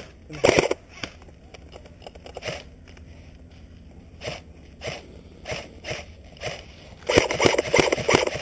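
Footsteps crunching over the ground, one step about every half second, coming closer together near the end.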